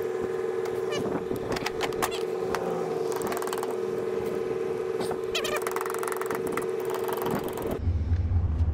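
Fast-forwarded sound of an old carburetor being taken apart with a screwdriver: many quick clicks and clinks of tool on metal parts over a steady raised hum, with a few brief squeaky sped-up voice glides. Normal-speed outdoor sound returns near the end.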